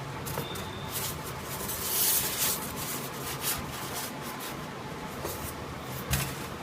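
Packaging being handled during an unboxing: irregular rustling and scraping, loudest about two seconds in, with a short knock near the end.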